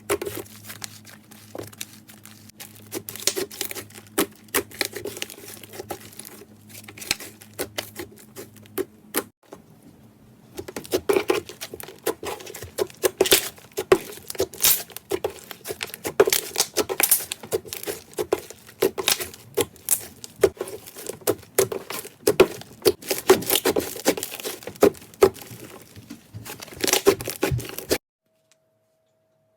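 Hands squishing, stretching and kneading clay slime: dense crackling clicks and sticky pops. It stops abruptly near the end.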